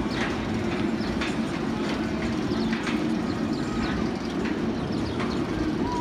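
Raptor, a B&M inverted steel roller coaster, its train running along the track with a steady rumble and a few scattered clicks.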